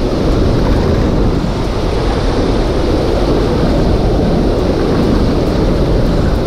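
Steady rush of turbulent water pouring out of a dam spillway outlet, a dense even roar heaviest in the low end, with wind buffeting the microphone.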